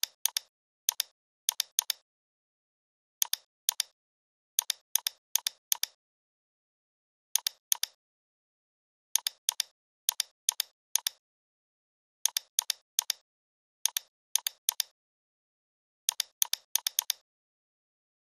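Computer mouse clicking in short clusters, mostly quick double-clicks a fraction of a second apart, with dead silence between them.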